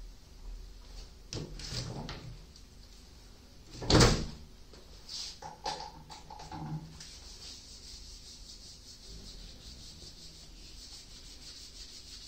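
Rustling as a disposable cap is pulled off, then a single loud clunk about four seconds in. A few short presses of a hand-sanitizer pump bottle follow, then a steady hiss of gloved hands rubbing sanitizer together.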